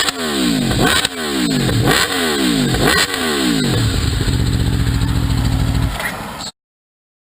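Sport motorcycle with an aftermarket exhaust being revved in quick throttle blips about once a second, the revs falling back after each. It then settles to a steady idle, and the sound cuts off suddenly near the end.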